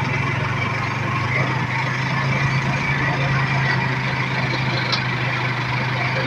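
Small motorcycle engine running steadily while under way, heard from the rider's seat: a constant low hum under even wind and road noise.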